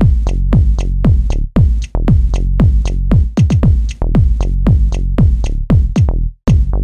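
Electronic dance music with a steady drum-machine beat: deep bass hits that each drop in pitch, with hi-hat ticks above. It breaks off briefly near the end.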